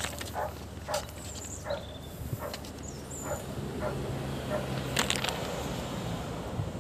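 A dog barking several times in short, spaced barks, with a few high bird chirps and a low hum partway through.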